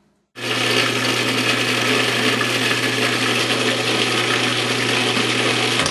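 Electric countertop food processor running steadily, a whirr over a constant low motor hum, blending a green mixture that is likely avocado for the batter. It starts just after the beginning and cuts off abruptly near the end.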